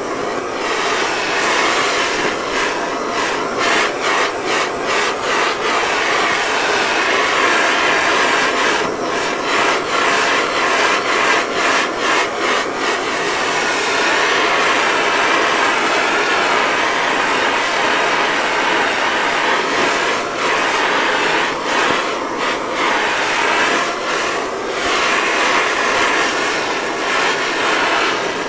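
Handheld gas torch burning with a steady hissing roar as its flame heats a stretched steel body panel to shrink it. The hiss flutters at times.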